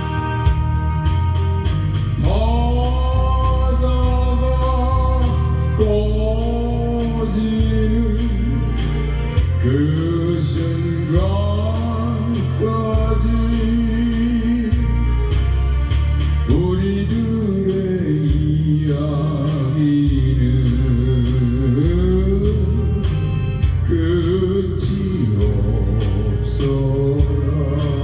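A solo voice singing a slow Korean ballad over a karaoke-style backing track with bass and a steady beat.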